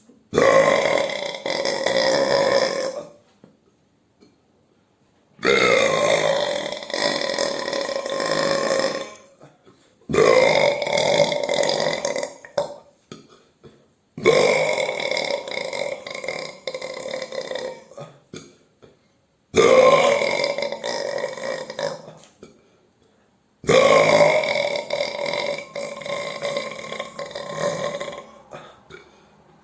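Six long human belches in a row, separated by short pauses. Each lasts about three to five seconds, starting strong and trailing off.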